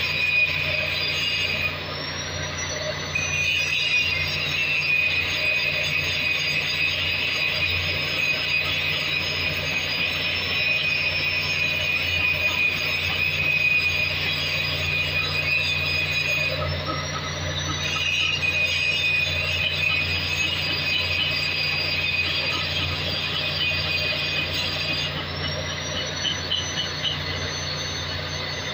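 Electric angle grinder grinding on a cracked main-engine exhaust valve housing: a steady high whine with a grinding rasp. It cuts out briefly three times and rises back up to speed each time, over a steady low hum.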